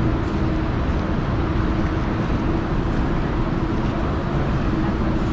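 Steady background noise of an indoor market hall, with a constant low hum running under it.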